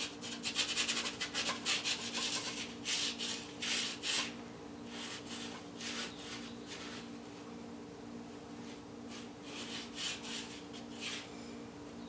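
Paintbrush bristles scrubbing and dabbing thick paint onto a canvas board: quick scratchy strokes, busiest in the first four seconds, then softer and sparser. A steady low hum runs underneath.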